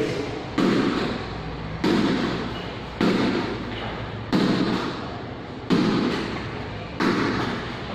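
A ball thrown hard against a wall in a large echoing hall during a throw-and-catch drill: six sharp impacts, about one every 1.3 seconds, each ringing out in the room before the next.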